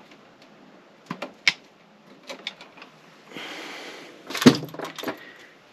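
Electrical wires and hand tools being handled at a junction box: a few sharp clicks and taps, a stretch of rustling about three seconds in, then a louder cluster of clicks and knocks about four and a half seconds in.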